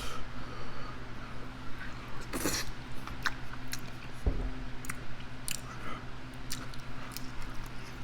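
A person chewing food close to the microphone, with many short, irregular wet mouth clicks.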